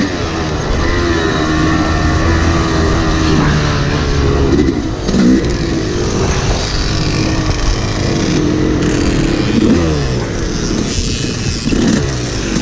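Yamaha dirt bike engine being ridden, its revs rising and falling again and again as the throttle is opened and closed.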